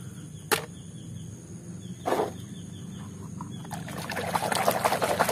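Water splashing and sloshing as a toy is washed by hand, building up from about four seconds in, after a sharp click and a dull knock earlier on.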